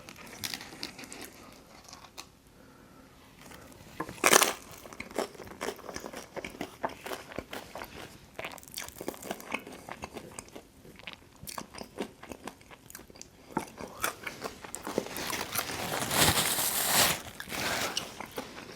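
Close-miked biting and chewing of Detroit-style pizza, with many small crunches and mouth sounds. There is one loud crunch about four seconds in, and a longer, louder stretch of crunching near the end.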